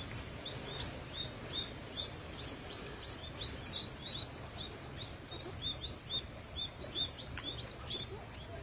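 Many short, high-pitched chirps, several a second and overlapping as from a group of small animals, over a low steady background hum.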